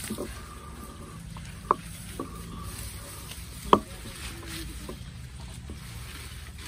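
Rustling and crackling of tall grass and dry banana leaves as someone moves through them, with two sharp clicks or snaps, the first about two seconds in and the second near four seconds.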